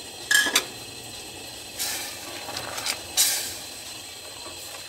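Silicone spatula stirring plums in a steel saucepan, a handful of short scraping strokes against the pan over a steady hiss.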